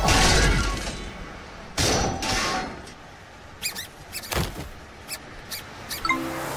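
Cartoon sound effects: a loud noisy crash at the start, a second shorter burst about two seconds in, then a run of short squeaky taps.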